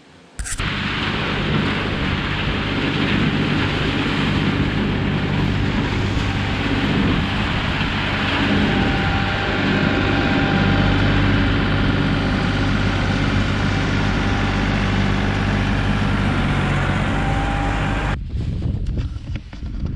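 Tractor engine running steadily close by, over a rushing haze of wind on the microphone; the sound cuts off suddenly near the end.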